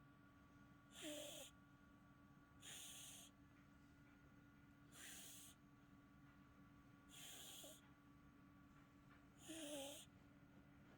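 Munchkin cat snoring in its sleep: five faint, short snores about two seconds apart, some with a brief wavering pitch.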